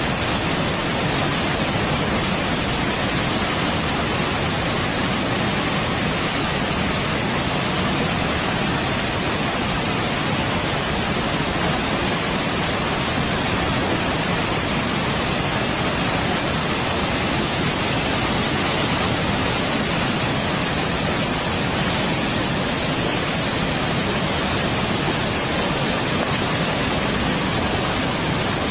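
Floodwater pouring over a waterfall into a swollen, churning river: a loud, steady rushing with no breaks.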